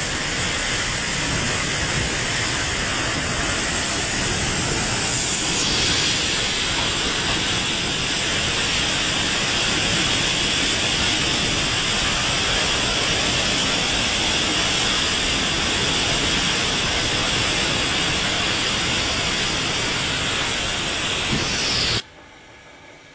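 Typhoon wind and heavy rain: a loud, steady rush of storm noise. About two seconds before the end it drops abruptly to a much quieter hiss.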